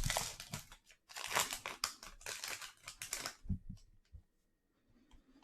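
Foil trading-card pack wrapper torn open and crinkled for about three seconds, followed by a few soft taps as the cards come out.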